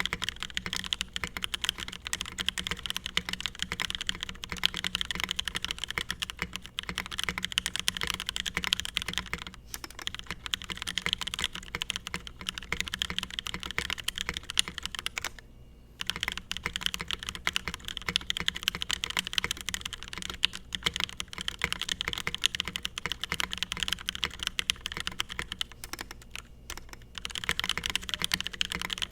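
Fast, steady typing on a Space65 Voyager top-mounted mechanical keyboard, unmodded, with a few brief pauses. The owner hears a higher-pitched, plasticky sound and echo under some keys.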